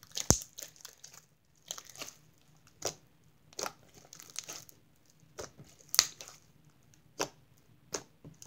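Hands squeezing, pulling and pressing a stiff, overactivated slime, which gives a wet crackle broken by about six sharp clicking pops. The slime tears rather than stretching.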